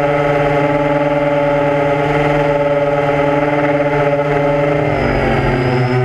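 A drone's motors and propellers running with a steady, high-pitched whine, the pitch dipping and rising again about five seconds in as the aircraft changes speed.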